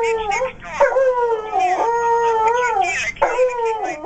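Dog howling: a run of long howls, each holding a pitch and then gliding up or down, with short breaks between them.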